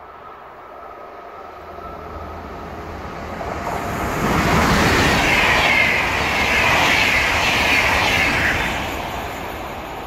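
A VR InterCity train of double-deck coaches, hauled by an electric locomotive, passes at speed close by. The wheel and rail noise builds over the first few seconds and is loudest for about four seconds in the middle as the coaches go by. It then fades away.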